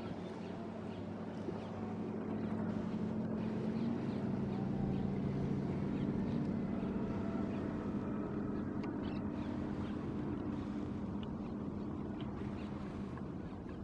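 Boat motor running with a steady low hum, growing a little louder toward the middle and easing off near the end.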